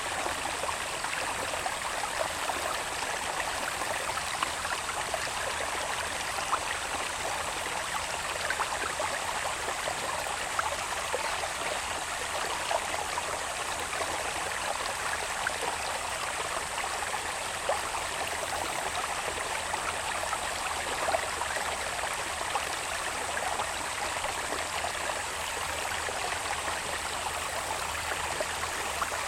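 Small stream in an irrigation channel running steadily, with an even babble and small scattered splashes, over a thin, steady, high insect tone.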